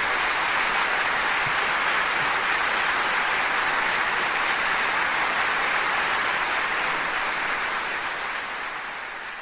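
Audience applauding at the end of a song, the applause fading out over the last couple of seconds.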